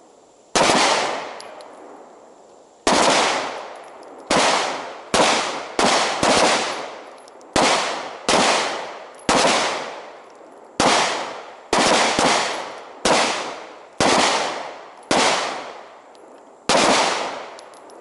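Pistol shots, about seventeen at irregular intervals from a fraction of a second to two seconds apart, each followed by a long echo that fades before the next, from shooters firing one-handed with the weak hand.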